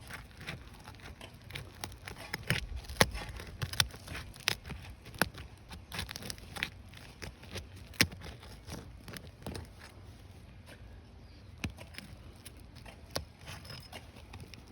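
Asphalt roof shingles being lifted to break their sealed tar strip: a run of irregular sharp cracks and snaps, the loudest about three and eight seconds in.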